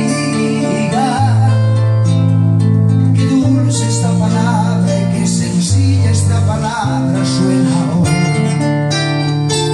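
A man singing to his own nylon-string classical guitar, strumming chords under the vocal line.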